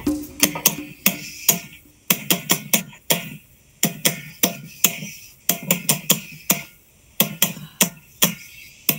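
A homemade percussion instrument beaten by hand, heard through a laptop speaker over a video call: sharp strikes in quick runs of about five or six, with short pauses between runs.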